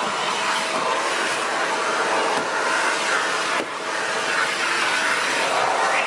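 Shark NV680 Powered Lift-Away vacuum cleaner running steadily while vacuuming carpeted stairs, with one short dip in loudness a little past halfway.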